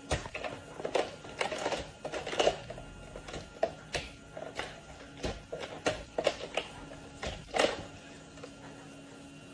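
Plastic toy cups and dishes clattering and knocking irregularly as a capuchin monkey handles them in a toy play sink, over the faint steady hum of the sink's small water pump running its faucet.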